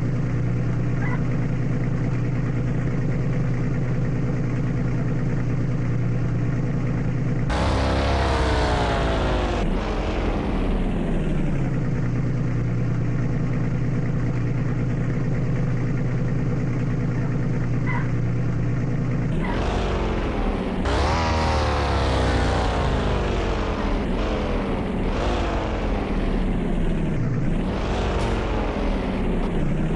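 Bentley Bentayga's engine holding a steady idle, then revving up and falling back about eight seconds in. From about twenty seconds in, the revs climb and drop repeatedly.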